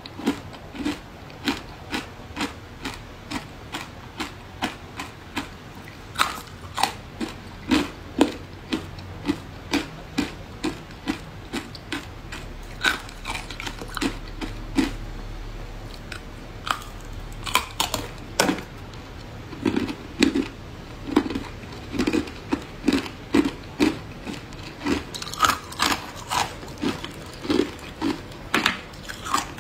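Thin pieces of matcha-dusted ice being bitten and crunched close to a clip-on microphone: a steady run of sharp crunches, about two a second.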